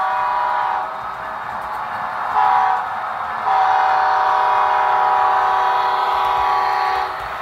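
A model diesel locomotive's multi-tone air horn from its sound system sounds the tail of a grade-crossing signal: a long blast cuts off about a second in, a short toot follows at about two and a half seconds, then a long blast of about three and a half seconds. Steady train running noise carries on between the blasts.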